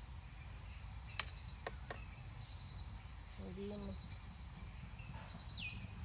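Steady high-pitched chorus of crickets or other insects, with three sharp clicks about a second in and a short falling whistle near the end.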